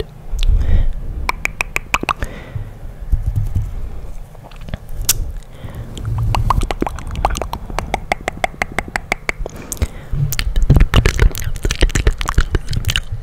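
Close-miked ASMR mouth sounds and hand sounds: rapid runs of wet clicks and pops, with low thumps from hands moving and rubbing at the microphone, cupped over it near the end.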